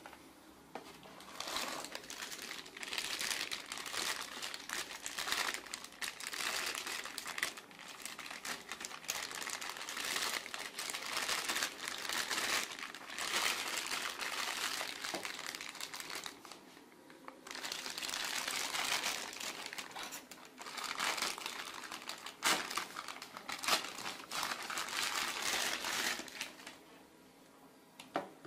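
Clear plastic accessory bags crinkling and rustling as the drive's cable and power adapter are handled and unwrapped. The crinkling comes in long bursts with a couple of brief pauses, plus a few sharp clicks.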